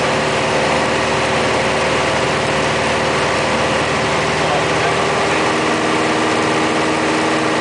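Piper Archer's four-cylinder Lycoming engine and propeller droning steadily in flight, heard inside the cabin over a constant rush of air noise. The note of the drone shifts slightly about five seconds in.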